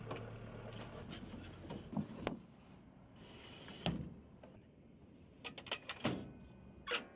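Rockets being loaded by hand into an AH-64 Apache's rocket pod: a series of sharp metal clicks and knocks, with a short sliding hiss as a rocket goes into its tube, seated with a knock about four seconds in.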